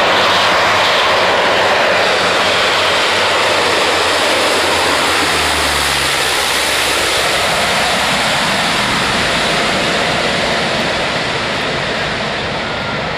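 Loud engine and propeller noise from a low-flying Canadair twin-engine amphibious water bomber. The deep engine hum drops away about six seconds in, while the broad roar carries on and slowly eases.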